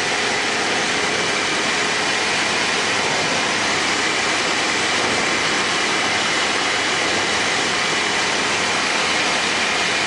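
Tecnam P92 Eaglet light aircraft in level flight, heard inside the cockpit: engine and propeller running at a constant setting under steady airflow noise, with a faint steady whine.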